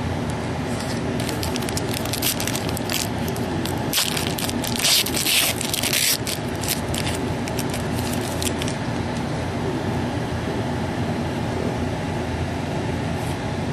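Crinkly rustling and crackling of trading cards and their plastic or foil packaging being handled, busiest and loudest around four to six seconds in, over a steady background hum.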